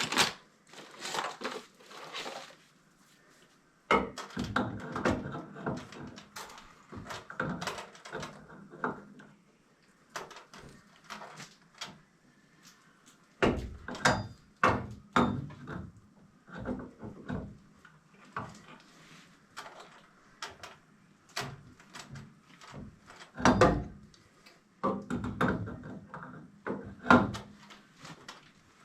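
Irregular knocks, clunks and scraping of tools and materials being handled, with several louder clunks.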